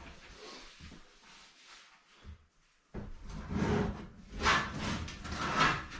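Handling noises: faint scattered knocks, then after a sudden break about three seconds in, louder scraping and clunking like things being shifted.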